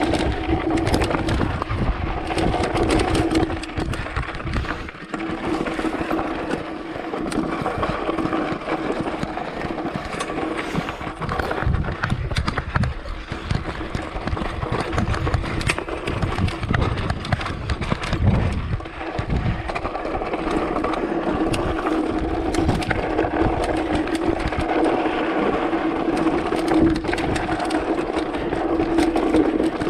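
Mountain bike, ridden without a chain, coasting down a rough trail: constant rattling and clatter over the terrain, a steady buzz, and wind gusting on the microphone.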